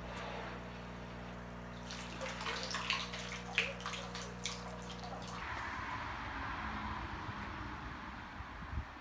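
Water splashing and trickling with irregular clicks and crackles, over a steady low hum that cuts off suddenly about five seconds in, leaving an even watery hiss.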